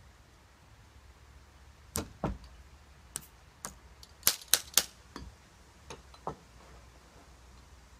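Ramrod knocking and clicking in the barrel of a Feinwerkbau History No.1 underhammer muzzle-loading pistol as it is rammed down the bore: about ten sharp, irregular strikes, the loudest three in quick succession a little past the middle.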